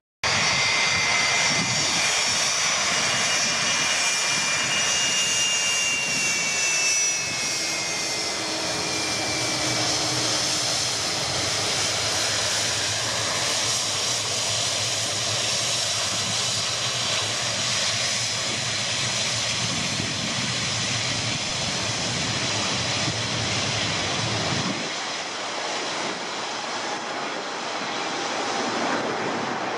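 Jet airliner engines running with a steady rushing noise. A high whine falls slowly in pitch over the first ten seconds or so, and the low rumble drops away near the end.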